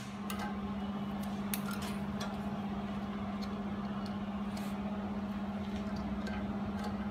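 Steady low hum of an ultrasonic welding machine standing idle between welds, with light scattered clicks and clinks as small razor parts are handled and set into its metal fixture.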